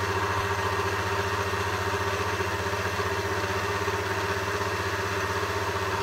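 Electric stand mixer running at a steady speed, its motor humming evenly as it mixes a bread dough in a stainless-steel bowl.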